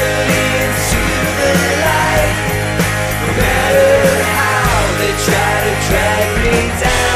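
Loud grunge-style rock music with distorted guitars, a steady drum beat and sung vocals.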